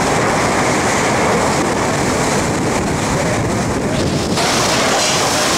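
Hurricane-force wind from the storm's inner core blowing hard in a loud, steady rush, buffeting the microphone.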